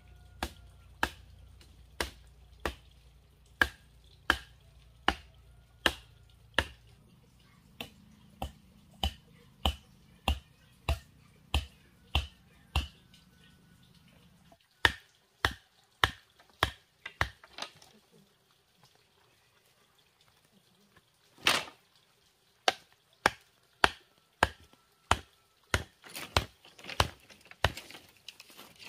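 Repeated sharp chopping strikes on bamboo, about one and a half a second for the first half. The strikes pause for a few seconds past the middle, then come one louder strike and a quicker run of strokes near the end.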